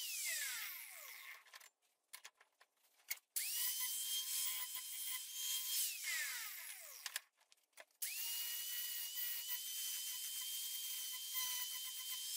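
Angle grinder sharpening a steel mower blade clamped in a vise: the motor runs with a steady high whine over a grinding hiss. It is switched off twice, its whine falling in pitch as it winds down, and after a short quiet pause with a few clicks it starts up again, about three and a half and eight seconds in.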